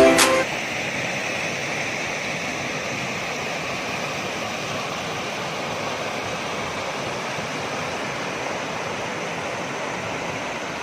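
Steady rushing of flowing river water, after a music track cuts off about half a second in.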